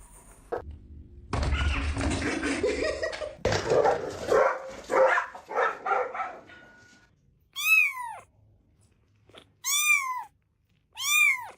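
Domestic cat meowing three times, each call rising and then falling in pitch, after several seconds of louder mixed noise.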